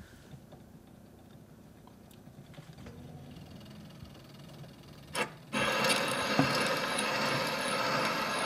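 Edison Chippendale 250 Diamond Disc phonograph being started: faint handling scrapes and clicks, then a knock about five seconds in. After the knock comes a steady hiss of disc surface noise from the horn as the record runs in its lead-in groove before the music.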